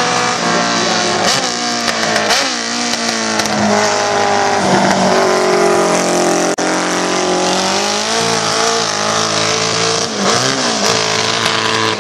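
Racing sidecar outfit's motorcycle engine running hard up the hill and passing close, the engine note dipping and climbing again with each gear change, about three times.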